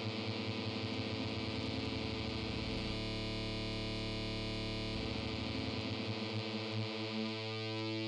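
Korg NTS-1 digital synthesizer playing its custom UberSaw v1.1 oscillator, a stack of detuned sawtooth waves. It holds one low, buzzy note whose voices beat and phase against each other. The beating stops for about two seconds midway, then returns.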